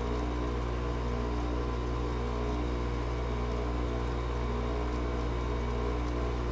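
GE 5,050 BTU window air conditioner running with a steady, unchanging hum, about two minutes after a cold start at -4 degrees outside, already putting out cold air.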